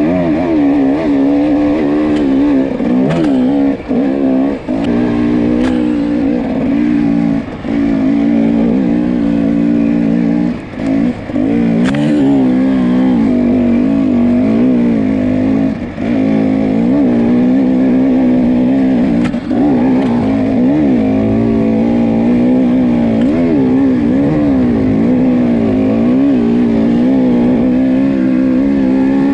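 Off-road motorcycle engine running under constantly changing throttle, its pitch rising and falling, with brief dips in loudness several times.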